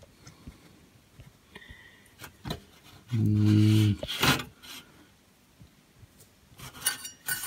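Quiet clicks and handling noise, and about three seconds in a steady, low-pitched hum lasting about a second that starts and stops abruptly.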